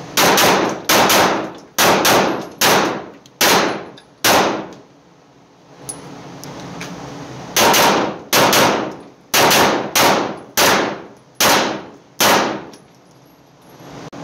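A 9mm Arex Delta Gen 2 L pistol fired at an indoor range: a string of about six shots, roughly one a second, then a pause of about three seconds and a second string of about seven shots. Each shot echoes briefly off the range walls.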